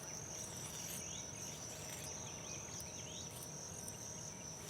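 Insects trilling outdoors: one steady, high-pitched continuous buzz, with a few faint short chirps beneath it.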